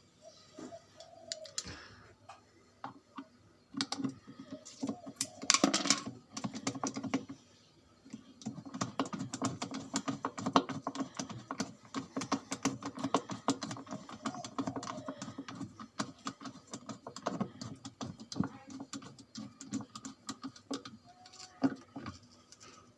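Quick, irregular clicking and rattling of hard objects being handled, with a short lull about seven seconds in.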